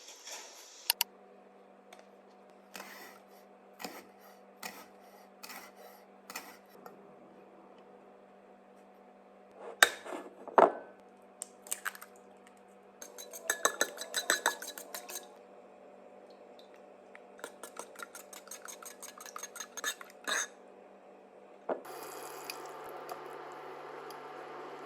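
Kitchenware being handled: dishes and utensils clinking and knocking in scattered strikes, with quick runs of light taps in the middle. A steady hum comes in near the end.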